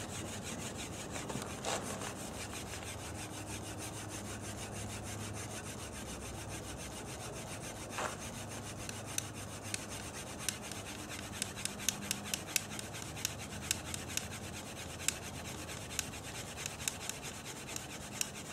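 Bamboo fire saw scraping rapidly back and forth across a bamboo fireboard, a steady hard friction scrape, with sharp ticks growing more frequent in the second half. The friction is heating the bamboo enough to smoke, working up to an ember.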